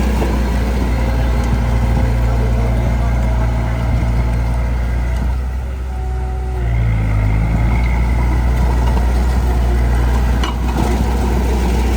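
Heavy diesel engine of earthmoving equipment running steadily, easing off about six seconds in and then revving back up. A short knock is heard near the end.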